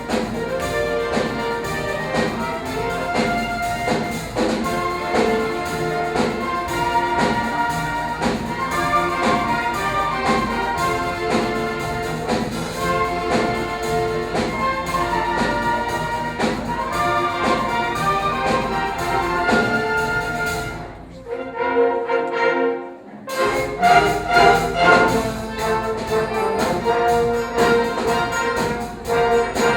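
Orchestral music with brass, briefly dropping low about 21 seconds in before coming back in full.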